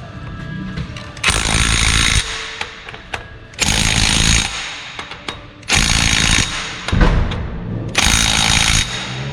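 Impact wrench hammering flywheel bolts tight on the crankshaft in four short bursts of under a second each, about two seconds apart.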